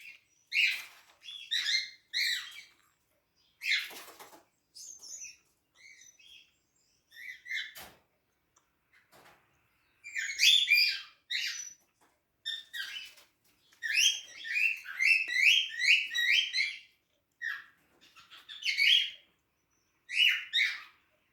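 Pet cockatiels chirping and calling in short irregular bursts, with a quick run of about half a dozen repeated chirps about two-thirds of the way through.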